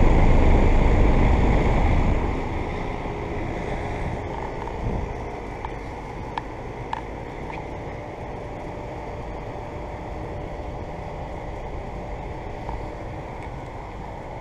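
Outdoor air-conditioner condensing unit running, a steady fan-and-compressor hum described as really quiet, with wind buffeting the microphone for the first two seconds.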